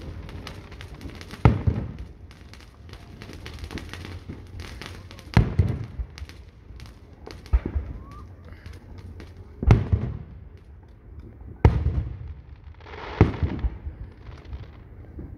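Aerial firework shells bursting overhead: about six sharp booms a couple of seconds apart, each trailing into a rolling rumble, with small pops and crackles between them.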